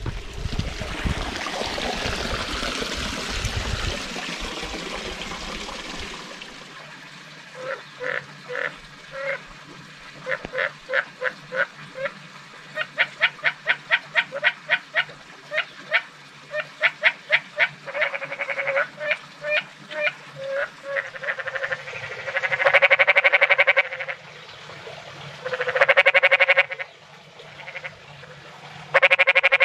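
A frog calling: after a few seconds of rushing noise, a run of short, quick croaks starts, building into longer, louder rattling trills in the second half.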